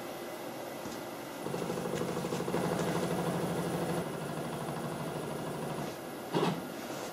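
CNC router's Z-axis drive motor running as it lowers the bit onto the touch-off plate to set the Z zero. A steady machine hum starts about a second and a half in and drops to a quieter tone about four seconds in. It stops around six seconds, followed by a brief louder burst near the end.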